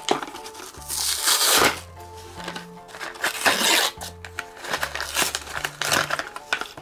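Toy packaging crinkling and tearing in three loud bursts as it is opened, over background music.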